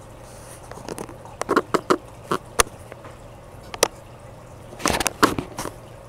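Irregular sharp clicks and knocks, about a dozen, in a cluster between one and two and a half seconds in, a single one near four seconds, and another cluster around five seconds in. Beneath them runs a faint steady trickle of aquarium water.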